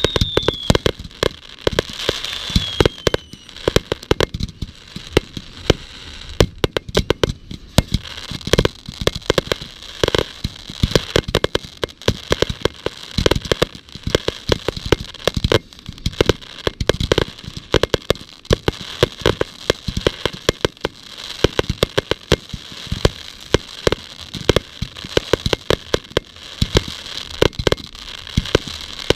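Fireworks display: a rapid, dense string of bangs and crackling pops that goes on without a break. A falling whistle runs through the first few seconds.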